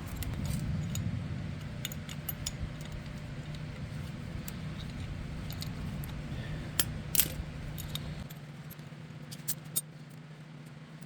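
Small metal parts clicking and rattling as they are handled, with a few sharper clicks about seven seconds in, over a steady low hum whose lowest part drops away about eight seconds in.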